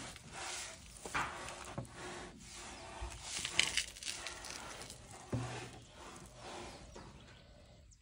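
Young elephant feeding on a leafy marula branch: leaves rustling and twigs crackling as it strips and chews them, with several louder crackles, dying down near the end.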